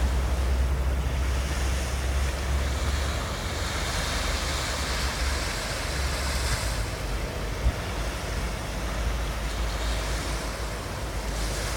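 Sea waves washing onto a beach, the surf swelling in the middle, with wind buffeting the microphone as a low rumble, strongest in the first few seconds.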